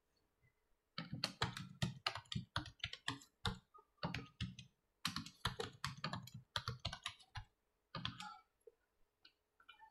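Typing on a computer keyboard: a fast run of keystrokes entering a password and then its confirmation. It starts about a second in, breaks off briefly twice, and stops near the end.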